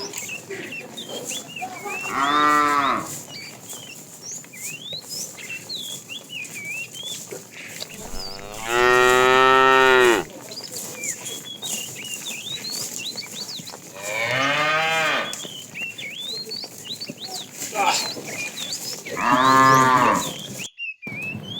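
Cattle mooing: four deep, drawn-out moos a few seconds apart, the second the loudest and longest.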